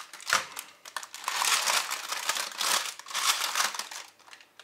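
Baking parchment crinkling and rustling in several bursts as it is handled to lift a roasted ribeye steak out.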